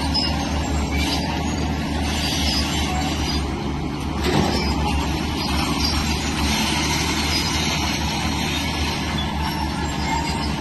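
Shantui crawler bulldozer's diesel engine running steadily under load, with the metallic rattle of its steel tracks and a knock about four seconds in.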